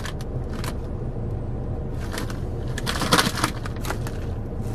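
Plastic chip bag crinkling and rustling as it is handled, the crackles loudest about three seconds in, over a steady low hum.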